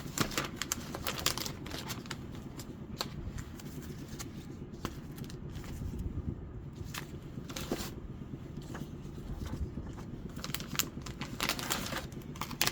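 Paper and cardboard stencils rustling, crinkling and clicking as they are handled and leafed through one after another, with irregular short scrapes and flaps over a steady low background rumble.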